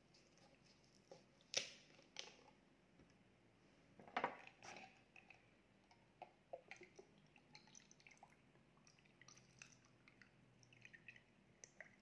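A plastic bottle cap cracking open with a couple of sharp clicks, then the drink being poured into a glass mug of ice cubes, with a scatter of small ticks and drips as the liquid runs over the ice.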